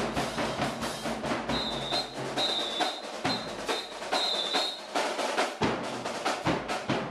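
Youth drumline playing marching drums: rapid, dense drum strokes with deep bass drum hits. A high tone sounds several times in the middle.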